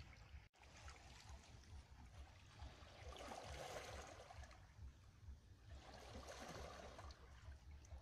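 Small waves lapping faintly against shore rocks, washing in twice, about three and six seconds in.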